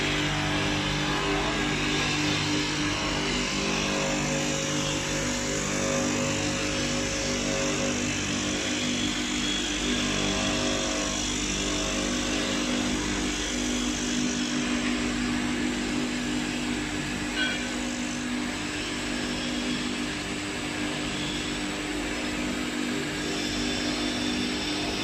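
Horizontal glass beveling machine running steadily: its electric motors hum with a few held low tones while the grinding wheels work the edge of a glass sheet under water coolant, an even grinding hiss.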